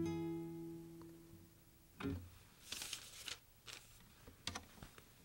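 A single plucked guitar note ringing out and fading away over about two seconds, followed by a soft thump and a few faint rustles and clicks.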